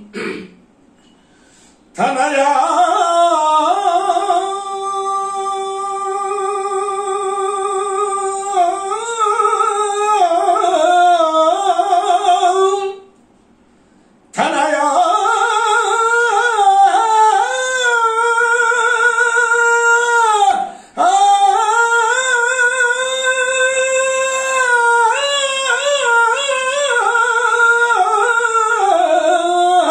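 A man singing a Telugu devotional keerthana alone, without accompaniment, in long held, wavering notes. He breaks off briefly just after the start and again about halfway through.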